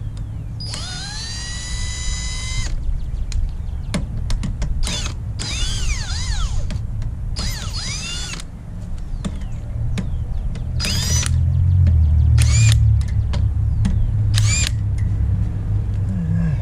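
Cordless power tool with a socket spinning truck lug nuts off, in about seven trigger pulls: the first about two seconds long, the rest short, each a motor whine rising in pitch as it spins up. A steady low rumble runs underneath and grows louder for a few seconds about two-thirds of the way through.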